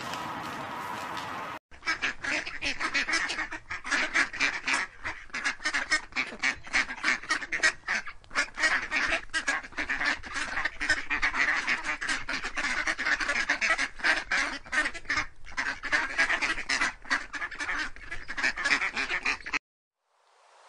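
A flock of mallards quacking in a rapid, dense, overlapping chatter. It starts about two seconds in and cuts off abruptly shortly before the end.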